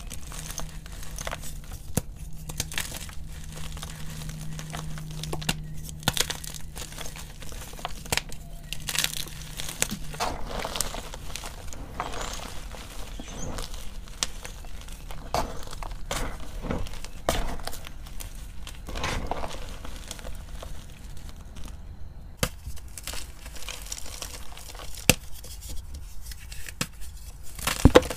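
Blocks of gym chalk crumbled and crushed by hand: dry crackling and crunching as the chunks break up, with soft powdery rubbing between the fingers, in many short irregular clicks.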